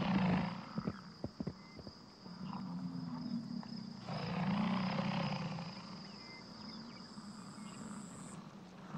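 American bison bulls bellowing in the rut: several low, rough roars, each a second or so long, the loudest about halfway through, over a steady high trill of insects.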